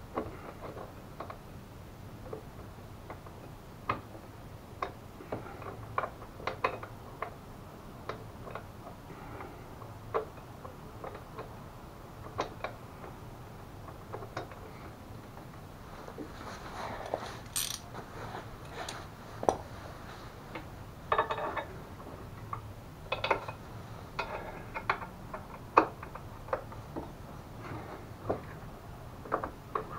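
Scattered metal clinks, taps and clicks of a bolt and hand tools being worked at a mobility scooter's front bumper mounting, as the bumper, front panel and frame are lined up for the bolt. A few short runs of rapid clicking come a little past halfway.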